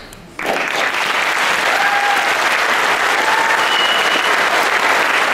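Audience applauding, starting abruptly about half a second in and holding steady.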